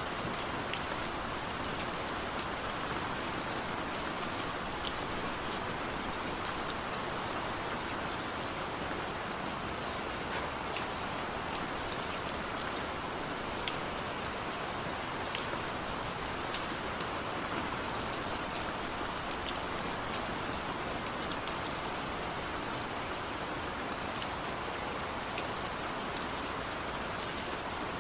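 Steady rain falling, a dense even hiss with many separate drops ticking sharply on a surface throughout.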